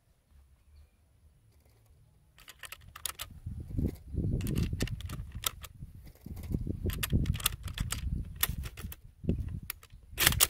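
Quiet at first, then about two seconds in, a run of irregular clicks and rustling handling noises over a low rumble, ending with one sharper, louder click or knock near the end.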